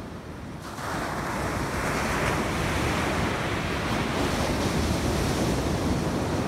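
Ocean surf breaking and washing up the beach, with wind on the microphone. The rush gets louder about half a second in and stays up.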